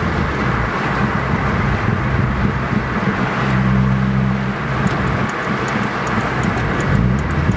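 Car engine and road noise heard from inside the cabin while driving, the engine running at a steady speed. A light, regular ticking joins about five seconds in.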